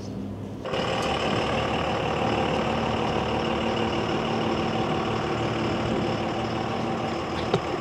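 Steady city street traffic noise with a vehicle engine running, starting a little under a second in after a quieter stretch.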